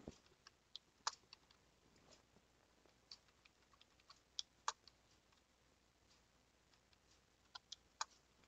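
Faint, scattered clicks of a computer keyboard and mouse: about a dozen single clicks at irregular intervals, with quiet pauses between.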